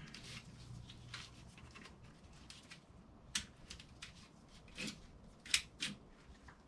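Scattered clicks and light knocks of tools and metal parts being handled in an engine teardown, a few sharp ones in the second half.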